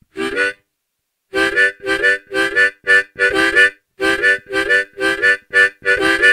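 Harmonica played dry, without effects: a short pair of chords, a pause of about a second, then short chords repeated in a steady rhythm of about three a second.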